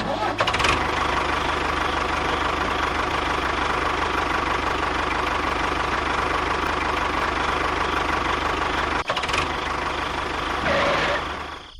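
Small motor of a DIY model bulldozer running steadily, with a brief drop about nine seconds in and a fade near the end.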